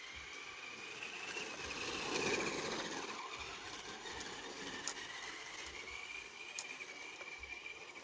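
Traxxas RC car's electric motor whining as it drives, the pitch rising and falling with the throttle, loudest about two seconds in with rough tyre noise as it comes close. It is running on a nearly flat battery.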